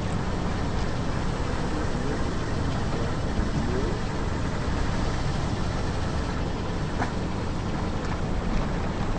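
A car's engine running with a steady low rumble, and a faint single click about seven seconds in.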